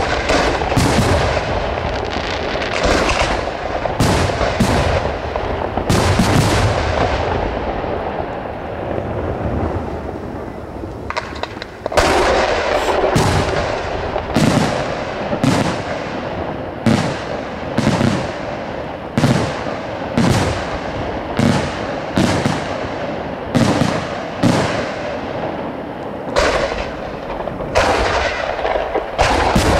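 Aerial firework shells bursting overhead in quick succession, a run of sharp bangs that each trail off in an echo. The bangs thin out briefly about ten seconds in, then come roughly once a second.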